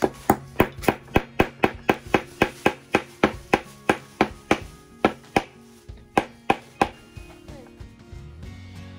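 A child hammering with a small claw hammer on a small wooden birdhouse kit: a quick, even run of about twenty light knocks at roughly three a second, then a short pause and three more, stopping about seven seconds in.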